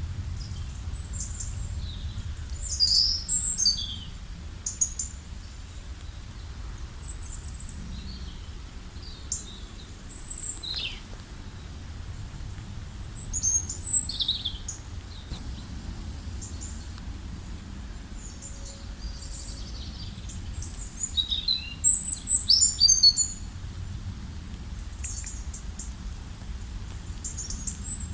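Several songbirds chirping and calling, with short notes and quick downward-sliding whistles coming in scattered bursts, the busiest cluster about three-quarters of the way through. A steady low rumble of outdoor background noise runs beneath them.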